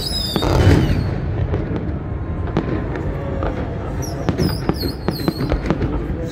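Fireworks display: a dense run of aerial shell bursts, bangs and crackling, the loudest a deep boom just under a second in.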